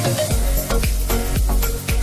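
Background music with a heavy bass and a steady drum beat.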